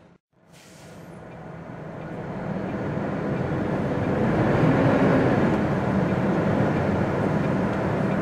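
MAN TGX articulated lorry's diesel engine and road noise, heard from inside the cab as the lorry pulls through a junction. It drops out briefly near the start, then builds steadily over the first few seconds and holds.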